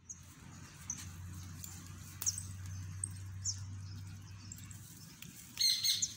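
Outdoor garden sound: short high bird chirps every second or so, then a louder cluster of calls near the end, over a steady low hum that fades out about five seconds in.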